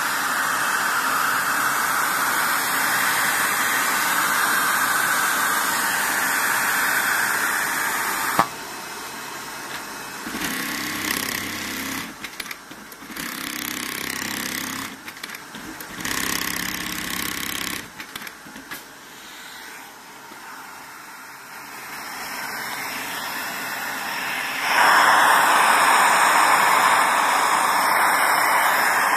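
Automatic template sewing machine stitching a V-shaped hem seam, running in several bursts over about eight seconds after a sharp click. A loud steady hiss fills the opening and returns near the end.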